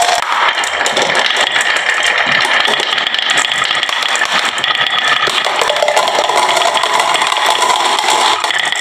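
Many marbles rolling and clacking down a wooden marble-run slope, a dense steady rattle of rapid clicks with a ringing rolling tone under it.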